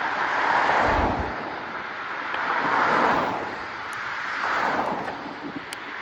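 Wind rushing over the microphone of a moving bicycle, swelling and easing three times, with a brief low buffet about a second in.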